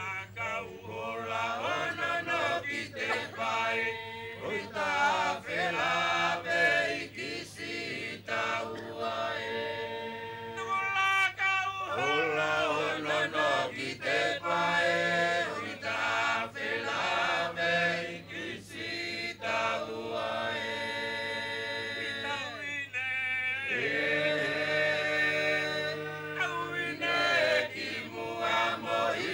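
A Tongan group of men and women singing a slow, chant-like song together, holding long notes in phrases that break briefly about a third and three quarters of the way through.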